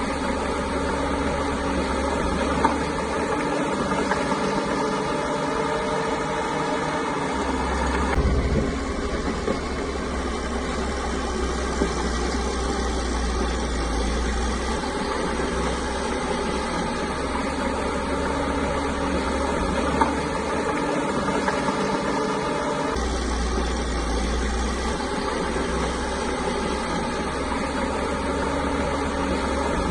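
Caterpillar bulldozer's diesel engine running steadily, its note shifting about eight seconds in and again a little past halfway, with a few faint knocks.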